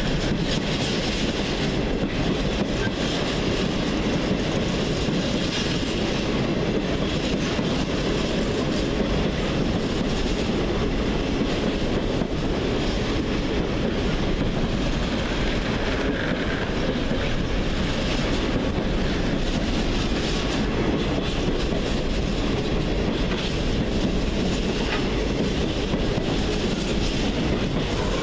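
Wagons of an intermodal freight train rolling steadily through the station, wheels clattering over rail joints with a steady rumble and now and then a faint, brief wheel squeal.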